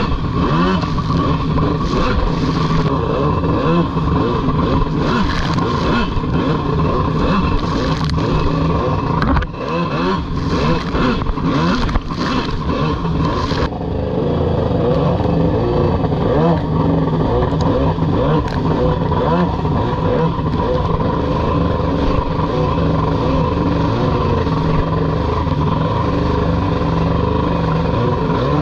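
Stand-up jet ski engine running hard and revving, loud and steady. About halfway through, the high hiss drops away suddenly.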